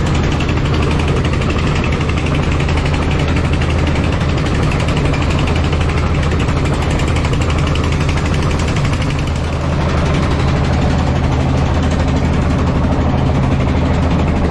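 Wooden fishing boat's engine running steadily at cruising speed, with a continuous rush of water and wind over it.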